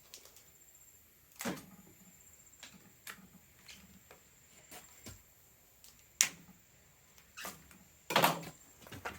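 Scattered clicks and knocks of handling as a packaged catfish fillet is cut open, with a sharp click about six seconds in and the loudest knock near the end.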